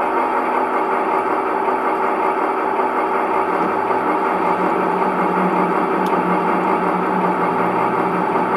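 Sound module of a PIKO G-scale BR 118 model diesel locomotive playing a steady diesel engine idle through its loudspeaker while the model stands still.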